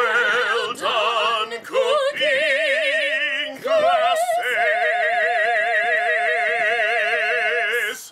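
A man and a woman singing in a mock-operatic style with wide vibrato: a few short sung phrases, then one long held note near the end.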